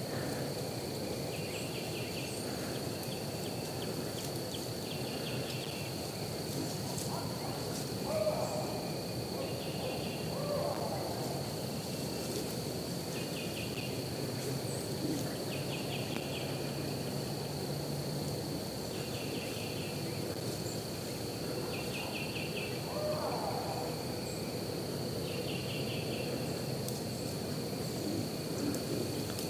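Woodland ambience: a steady high, thin insect-like drone, with a pulsed ticking trill repeating about every two seconds and a few short lower calls now and then over a soft hiss.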